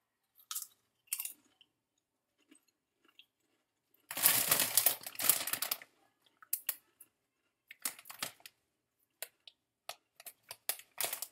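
Crisp Lay's potato chips being bitten and chewed: short crunches, a louder dense stretch of crackling about four seconds in lasting around two seconds, then a run of small crunches.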